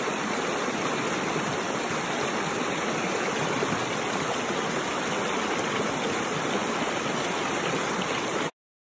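Small woodland creek rushing and splashing over a low rock ledge in a short cascade, a steady rush of water that cuts off suddenly near the end.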